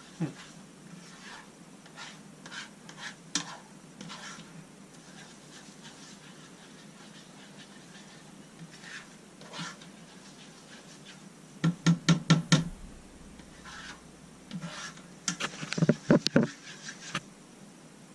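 Spoon scraping and knocking against a frying pan as a butter-and-flour roux is stirred, with scattered light clicks and two flurries of quick strokes, one a little past the middle and one near the end.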